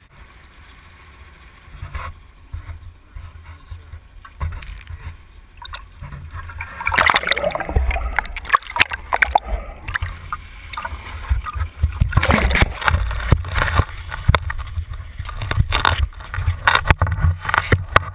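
Water sloshing and splashing close to the camera on the gaff as a king mackerel is gaffed at the surface and hauled aboard, over a low rumble, with scattered knocks. The splashing gets much louder about seven seconds in.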